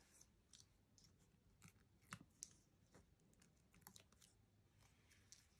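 Near silence, with faint scattered ticks and short rustles of paper and card being handled.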